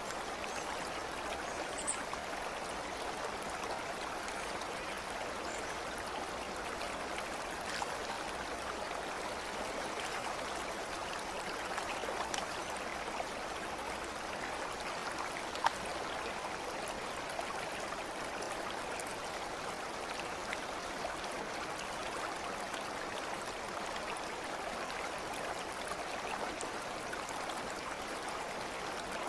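Steady running water of a stream, an even babbling wash with a few faint brief ticks over it.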